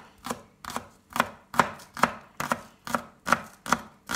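Chef's knife chopping green onion on a wooden cutting board: a steady run of sharp knife strikes, about two and a half a second.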